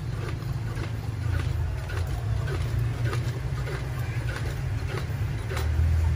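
Hand pump of a Petromax mini 250 CP kerosene pressure lantern being stroked to pressurise the fuel tank, soft strokes about twice a second. A steady low rumble runs underneath and is louder than the strokes.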